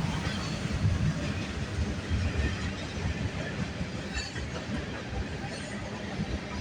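CN M394 manifest freight train's cars rolling past, a steady low rumble of steel wheels on the rails with a few faint clicks.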